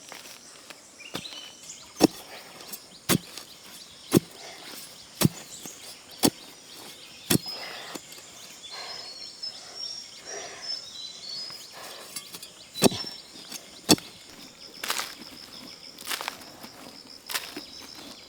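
Chopping with a blade: a run of strokes about a second apart, a pause of a few seconds while small birds chirp, then more strokes.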